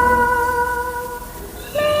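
Slow background music of long, held notes: one note is sustained for about a second and a half and fades, and a new note begins near the end.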